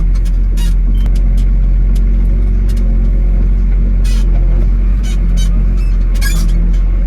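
Tractor engine running steadily under way, a constant low drone with scattered rattles and clicks over it.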